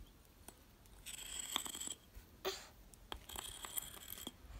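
Sidewalk chalk scraping across concrete paving in two strokes, each about a second long, with a short noise between them.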